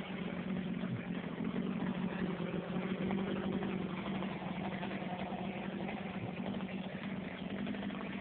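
Chainsaw idling steadily after being run at full throttle, a low even engine hum.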